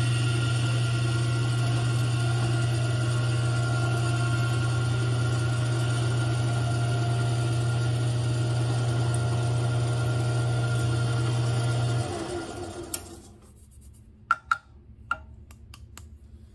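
Drill press running steadily with a low hum as a small bit drills a 3/32-inch pin hole through the desert ironwood handle block. The motor is switched off about twelve seconds in and winds down, followed by a few light clicks as the block is handled.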